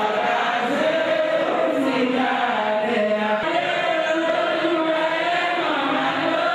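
Chanted vocal music: several voices singing a melody together in long, held lines.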